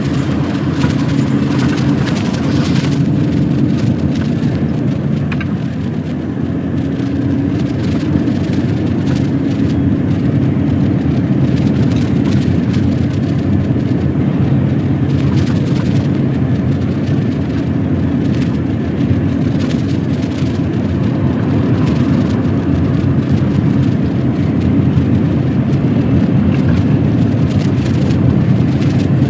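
Articulated lorry's diesel engine running steadily under way, a low drone with road noise and occasional light knocks.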